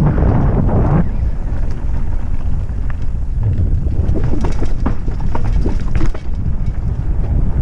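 Mountain bike descending a dirt trail at speed: a steady low rumble of tyres and wind buffeting the bike-mounted microphone, with frequent sharp clicks and rattles from the bike jolting over roots and bumps.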